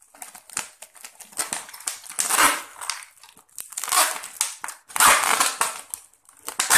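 Adhesive tape pulled off the roll and wrapped around a plastic water bottle packed with broken glass, in four noisy pulls, with the plastic bottle crinkling as it is handled.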